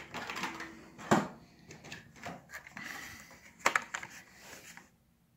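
Die-cast toy cars in cardboard-and-plastic blister packs being handled and pulled from a box: rustling and rubbing with two sharper clacks, about a second in and a little past the middle. It stops shortly before the end.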